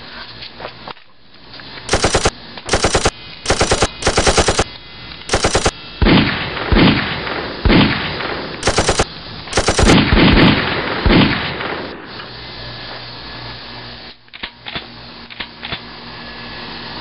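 Gunfire sound effects for toy-gun play: about seven short bursts of rapid automatic fire in the first eleven seconds. Several deep booms that drop in pitch come between them in the middle. After about twelve seconds there are only a few faint clicks.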